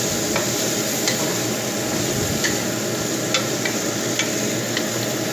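Pork and tofu sizzling in a stainless steel wok as they are stir-fried with a wooden spatula, which knocks and scrapes against the pan in a scattering of sharp clicks.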